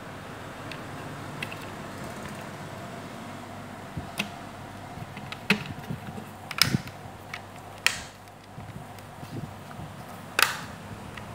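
Plastic dot-matrix printer ribbon cartridge being handled: about half a dozen sharp plastic clicks and taps over a steady background noise, the loudest near the end.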